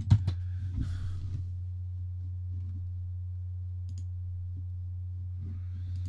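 Steady low electrical hum, with a few quick keyboard clicks right at the start as a text label is typed and one faint click about four seconds in.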